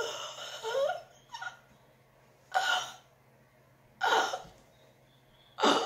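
A woman gasping sharply for breath three times, about a second and a half apart, acting out being unable to breathe.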